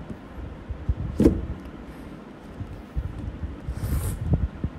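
The snug cardboard lid of a MacBook Air retail box being worked up and slid off its base, with low rubbing and handling noise and a sharp knock about a second in. A short airy hiss near the end as the lid comes free.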